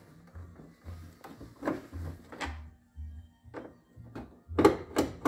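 Clicks and knocks of a screwdriver working out the screws along the bottom of a plastic truck door panel, the loudest few close together near the end. Background music with a steady bass beat runs underneath.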